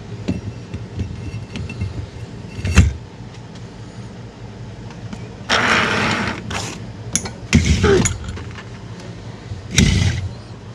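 Metal CVT primary clutch parts handled and fitted together during reassembly: a sharp click about three seconds in, a longer rubbing scrape a little past halfway, then several clunks, the loudest near the end, over a steady low hum.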